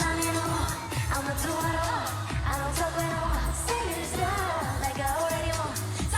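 Asian pop music with female singing over a steady drum beat.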